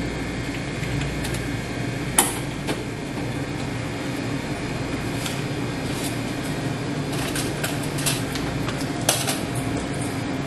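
Steady hum of a convenience store's background noise, with a few sharp clicks and light handling noise from a paper receipt and bag at the checkout counter; the sharpest clicks come about two seconds in and near the end.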